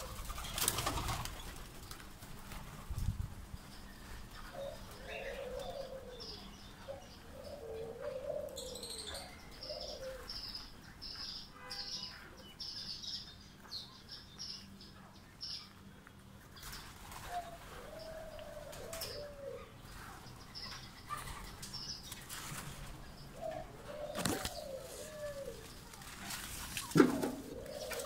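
Doves cooing in several short low phrases, with high chirping from other birds through the middle and a few brief bursts of wing flapping.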